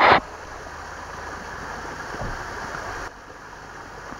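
Steady hissing background noise, opening with a short loud burst of noise that is the loudest thing here; the level dips slightly about three seconds in.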